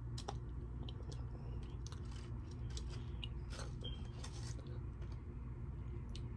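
Close mouth sounds of chewing carne asada tacos, scattered short clicks and rustles as tortillas are picked up from the foil wrapping, over a steady low hum.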